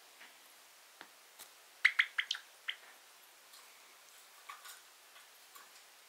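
Java sparrow making small, sharp clicks: a quick run of about four around two seconds in, with fainter single ones scattered through the rest. The owner wonders whether these are sneezes.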